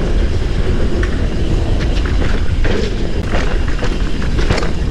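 Mountain bike riding fast down a dirt singletrack: a steady low rumble of tyre and wind noise on the bike-mounted microphone, with the bike clattering and rattling over bumps several times.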